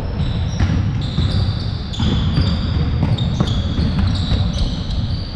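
Basketball being dribbled on an indoor gym court, with repeated ball bounces and high-pitched sneaker squeaks on the hardwood floor, over a steady low rumble of the hall.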